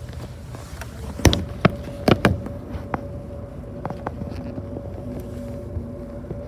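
Inside a moving bus: a low engine and road rumble with a steady thin whine. A cluster of sharp knocks and rattles comes between about one and two and a half seconds in, then lighter clicks.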